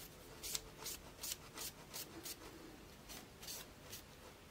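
Faint handling and rubbing of a pair of bonsai scissors and a cotton pad: a string of short, soft brushing strokes, about two or three a second, as the blade is wiped down for disinfection.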